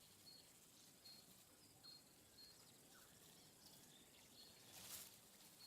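Near silence: faint outdoor bush ambience with a soft high chirp repeating about every two-thirds of a second, and a brief soft hiss near the end.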